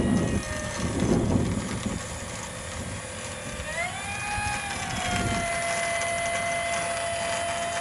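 Battery-powered electric motor and propeller of a radio-controlled gyrocopter spooling up about four seconds in, then running at a steady whine. Wind buffets the microphone in the first couple of seconds.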